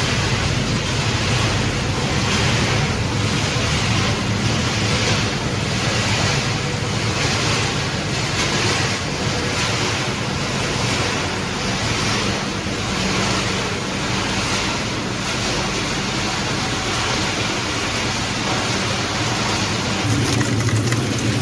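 Circuit-board crushing and separating machinery running: a steady machine hum under a hissing rush that swells about once a second.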